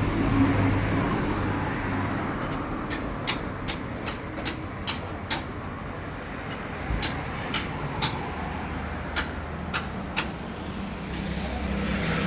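A series of about a dozen sharp clicks or taps, irregularly spaced, over a steady background noise.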